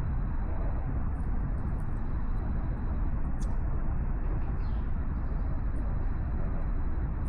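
Steady low outdoor rumble with no clear single source, a faint thin high tone held over it and a couple of small clicks about three and a half seconds in.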